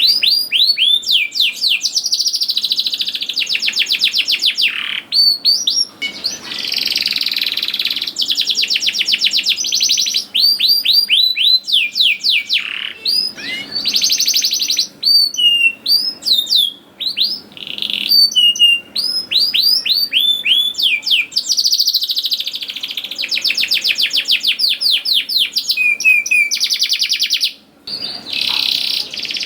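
Domestic canary singing in full, continuous song: long rolling trills of rapidly repeated falling notes, broken by short chirped 'cuit cuit' phrases, with a brief pause near the end.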